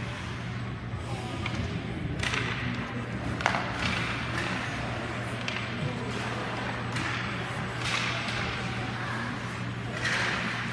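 Sounds of play in a team game: several sharp cracks and knocks, the loudest about three and a half seconds in, with swishes over a steady low hum.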